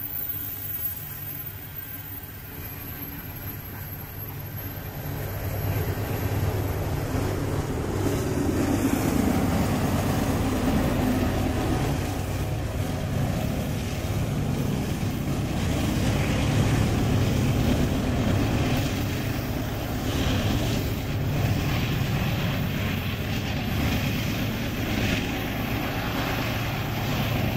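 Loaded coal train led by a GE AC44CW diesel-electric locomotive with a 16-cylinder engine. The engine rumble grows louder over the first several seconds as the locomotive approaches, then holds as a steady heavy diesel drone with rail and wheel noise.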